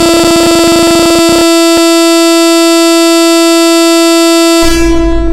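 One held electronic horn-like tone, pushed into heavy distortion at ear-splitting loudness. A distorted low rumble under it drops out about a second and a half in and comes back near the end.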